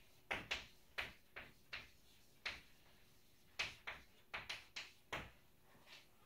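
Chalk tapping and scraping on a blackboard as a line is written: about a dozen short, sharp knocks at uneven intervals, stopping about five seconds in.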